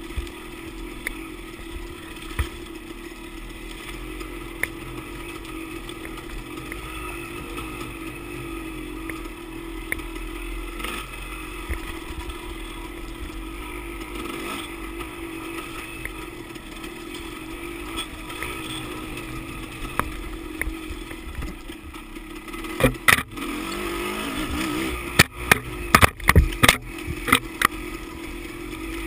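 Dirt bike engine running steadily as the bike rides along a dirt trail. In the last several seconds, a run of sharp, loud knocks and clatters over the engine.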